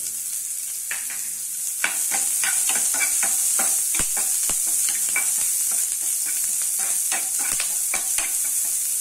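Chopped onion, dried red chillies and curry leaves sizzling in hot oil in a non-stick pan, with a spoon scraping and tapping against the pan as they are stirred. The stirring clicks start about a second in and come thick and fast from about two seconds on.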